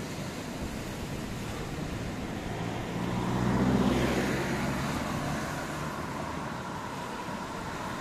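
A motor vehicle drives past, its engine swelling up to a peak about halfway through and then fading away. Underneath is a steady wash of wind and surf.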